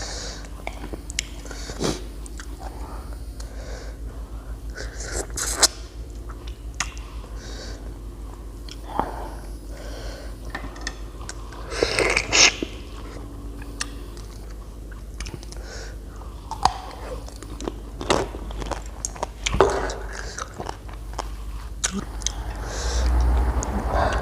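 Close-miked eating: a person chewing and biting food with wet mouth smacks and scattered crunches, a few louder crunchy bites about halfway through and again later.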